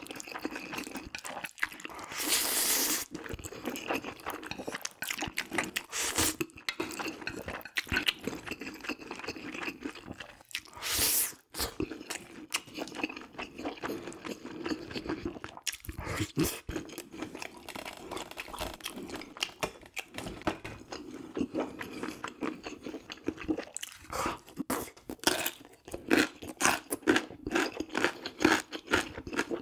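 Close-miked eating sounds of someone eating jjajang ramyun noodles topped with beef: wet chewing and mouth clicks, with two louder, longer noisy bursts about two and eleven seconds in.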